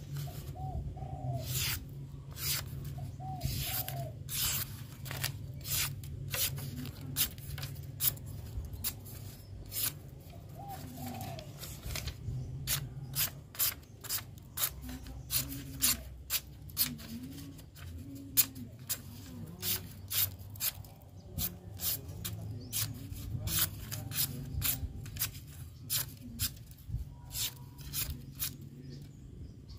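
Short, irregular rubbing strokes, about one to two a second, as an acid-etched steel knife blade is rubbed clean and its paper mask rubbed off, over a low steady hum. Pigeons coo faintly at times.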